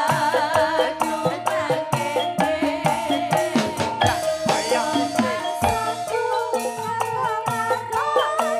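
Live campursari band music: regular drum strokes under a melody line with a wavering vibrato.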